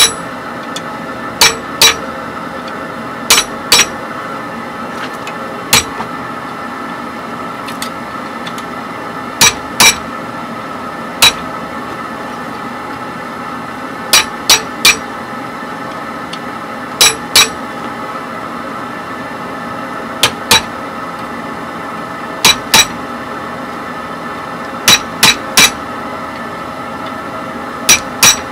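Small hammer striking a hand-held chisel set against hot iron clamped in a vise: sharp ringing metal-on-metal blows, mostly in quick pairs or threes with pauses of a few seconds between, about twenty in all, over a steady background hum.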